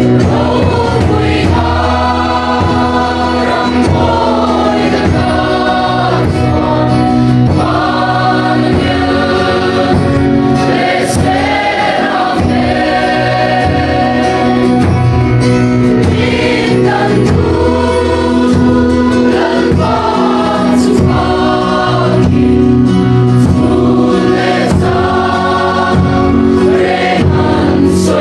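A crowd of young men and women singing a hymn together, with a steady held accompaniment underneath.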